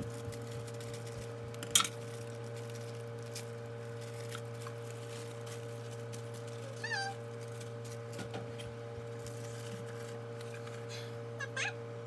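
Steady electrical hum, with a sharp click a little under two seconds in and two brief high-pitched squeaky calls, one about seven seconds in and one near the end.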